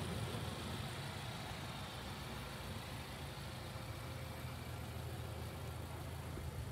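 A vehicle engine idling steadily, a low even hum.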